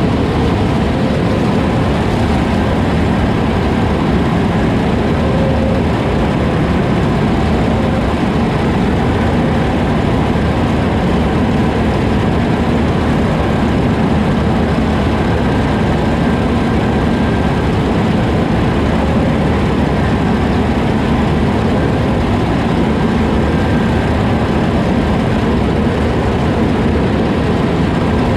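Heavy farm machinery's diesel engine running steadily, a loud, even drone that does not change.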